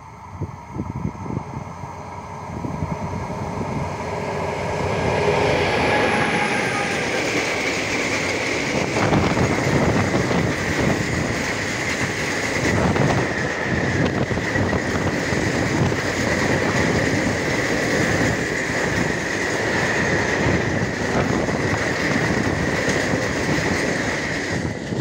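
Freight train of Uacs cement hopper wagons passing close by. The locomotive approaches and goes past in the first few seconds, then the wagons roll by with a loud wheel rumble, regular clickety-clack over rail joints, and a steady high squeal from the wheels.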